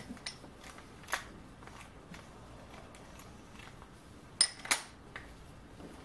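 A few sharp metallic clicks and ticks as a masonry drill bit is fitted into a keyed drill chuck and the chuck key is engaged, the drill itself not running. The loudest two clicks come close together about four and a half seconds in.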